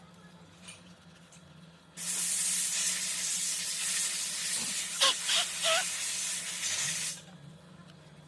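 A pressurised spray or air jet hissing steadily for about five seconds, starting and stopping abruptly. A few short squeaky rising tones come through over the hiss around the middle.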